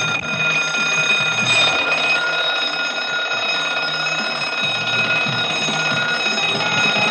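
An alarm bell ringing continuously in one loud, unbroken ring.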